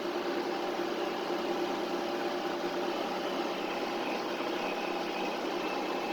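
A vehicle's engine running steadily at a slow, even pace while driving, a constant hum with a faint steady whine over it.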